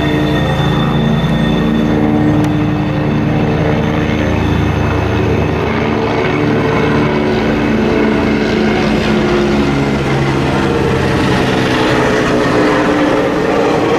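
Freight train rolling past, a steady loud rumble with low humming tones, and a high wheel squeal that fades out in the first few seconds.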